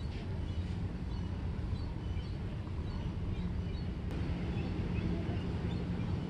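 Outdoor ambience: a steady low rumble with a faint hum, and short faint bird chirps scattered through it.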